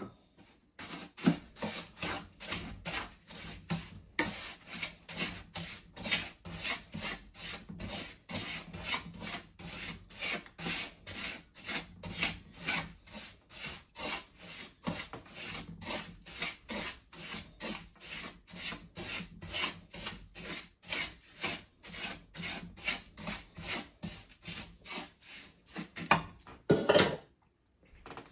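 Wooden spatula scraping and stirring semolina, ghee and sugar around a nonstick frying pan, in steady rhythmic strokes about two to three a second, with a couple of louder strokes near the end. The sugar is being worked into the roasted semolina for halwa.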